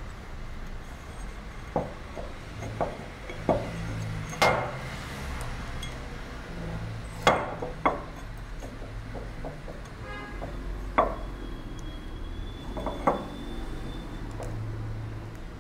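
Metal lamp fittings clicking and knocking against a glazed ceramic lamp base as they are fitted and screwed on by hand: a handful of sharp clicks and clinks, a few with a short ring, and a quick run of fine ticks partway through.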